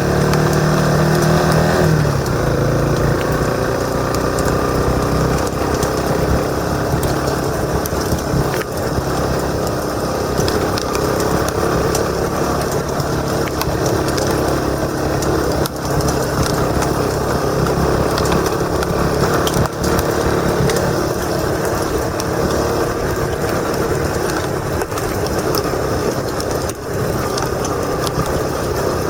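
Motorcycle engine running while riding, recorded through a helmet-mounted camera with wind noise over it. The engine note drops about two seconds in, and many small clicks and knocks run through the ride.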